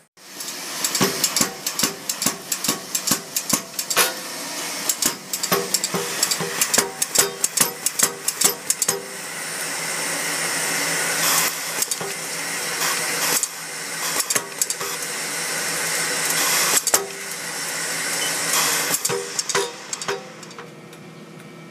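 Pneumatic air hammer on a C-frame stand, a low-recoil (微反動) air hammer, striking a metal bar on its anvil die. It starts with separate sharp blows at two to three a second, then from about nine seconds in runs continuously with rapid blows and a noisy hiss, stopping shortly before the end.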